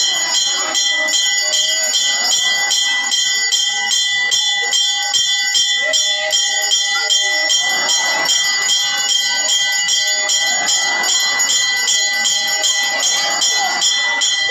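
Temple bells ringing rapidly and continuously as lamps are waved before the deity during aarti, with steady ringing tones over a fast run of even strokes.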